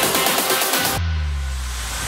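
Electronic dance music. About a second in, the treble drops out and only low bass tones remain.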